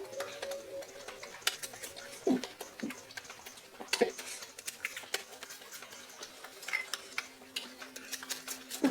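An apple being bitten and chewed: scattered crisp crunches at uneven intervals.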